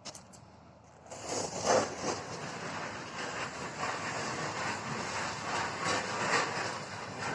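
Heavy machinery or a large vehicle running, with clattering and crackling, coming in loud about a second in.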